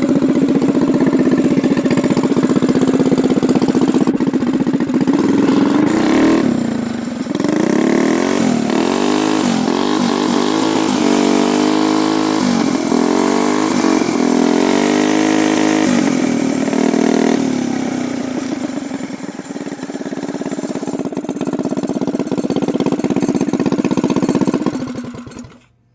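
Modified mini bike's single-cylinder four-stroke engine, with a 275 cam and ported head, idling, then revved in a series of short throttle blips for about ten seconds before settling back to idle. The sound cuts off suddenly near the end.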